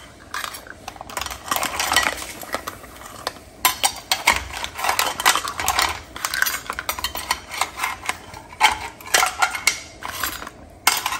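Razor clam shells clattering and a metal skimmer clinking against the plate and pan as the clams are pushed into boiling water, with many irregular knocks and clicks.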